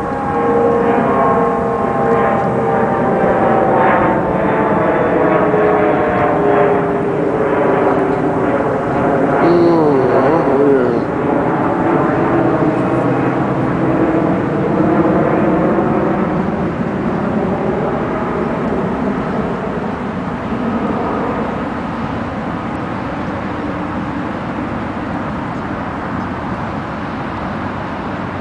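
A passing engine drone, several tones slowly falling in pitch over the first ten seconds or so, over a steady rushing noise.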